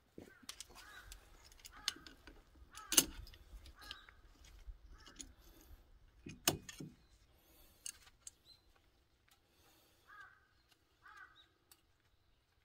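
Sharp metal clicks and knocks from pliers working loose the fitting on an engine-oil drain hose, the two loudest about three and six and a half seconds in. Crows caw several times in the background, twice more near the end.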